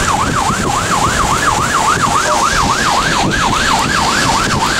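Emergency vehicle siren in a rapid yelp, its pitch sweeping up and down about three times a second, over a steady rushing noise.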